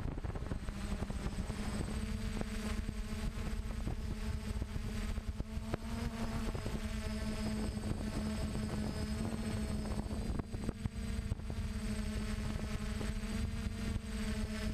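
DJI F450 quadcopter's four electric motors and propellers running in flight, picked up by the camera mounted on the craft: a steady buzzing hum that settles in about a second in, over a low rumble of wind on the microphone.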